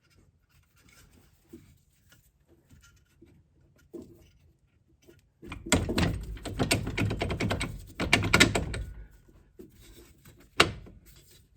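Metal clunking and rattling as a strut-to-knuckle bolt is wiggled and pushed through a new strut's lower bracket and the steering knuckle. A few light knocks, then about three seconds of dense clattering, and one sharp knock near the end.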